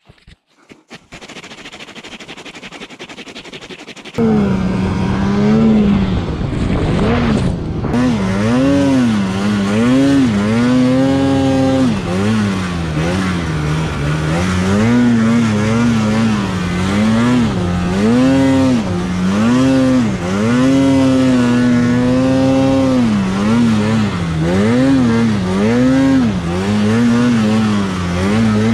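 Snowmobile engine pulling through deep powder, its pitch swinging up and down every second or two as the throttle is worked. It comes in loudly about four seconds in, after a quieter opening.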